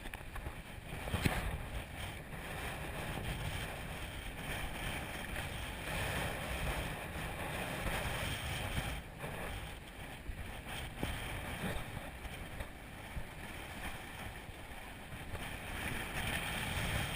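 Sea waves washing and breaking, with wind buffeting the microphone in a steady low rumble and a single knock about a second in.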